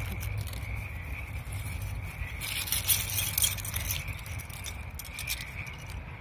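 Small Best-Lock plastic building bricks rattling and clicking as they are shaken out of a plastic bag and handled, with the bag rustling, loudest a little past halfway.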